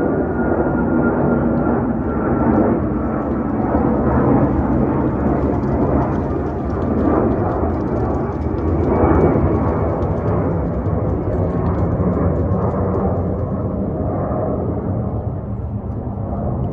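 Airbus A330-300 jet engines and rushing air, a loud, steady rumble that swells briefly about halfway through.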